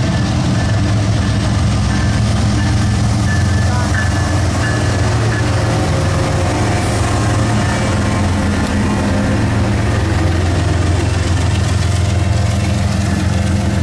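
Diesel-electric freight locomotives passing close by, their engines running under power with a loud, steady low drone.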